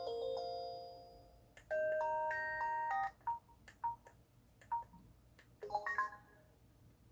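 Samsung SMT-W6370 internet home phone's electronic tones. A melodic ringtone fades out in the first second, then a short electronic jingle plays. After it come several short key beeps, each with a click, and a quick cluster of beeps near the end.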